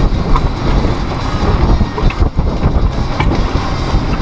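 Wind buffeting the microphone aboard a small sailboat under way, a loud, uneven rumble with the rush of the boat moving through the water.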